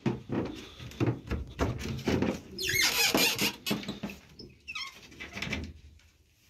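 Wooden slatted loft gate being handled: a run of knocks and rattles, then a loud high squeak about three seconds in and a shorter one a little later.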